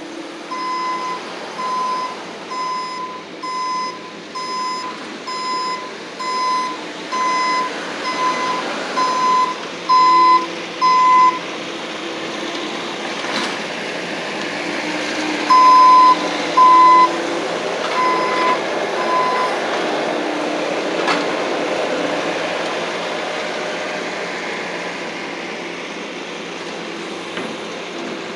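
Bobcat skid-steer loader's reversing alarm beeping about once a second, in a long run of about a dozen beeps and, after a short pause, a second run of four, over the machine's engine running steadily.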